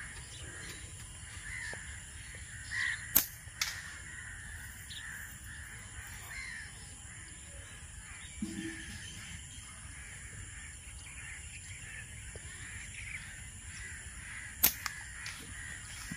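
Crows cawing repeatedly, with two sharp snaps, the loudest sounds here, the first about three seconds in and the second near the end.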